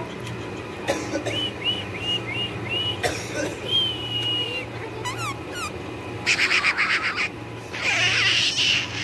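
Pit bull panting hard in two loud breathy bursts in the second half, the first in fast even pulses. Before that comes a run of about five short high chirps, then a longer high whistle-like tone and two quick falling chirps.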